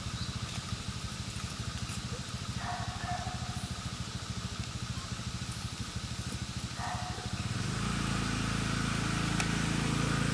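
An engine running with a rapid low throb, which turns into a steadier, louder hum about three-quarters of the way through.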